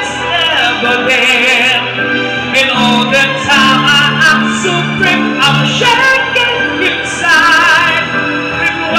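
Karaoke song playing through a PA speaker: a backing track with a live singer's amplified voice, held notes wavering with vibrato.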